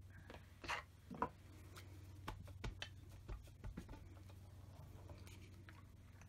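Faint scattered taps and rustles of hands handling paper and a rubber stamp on a stamping platform, over a low steady hum.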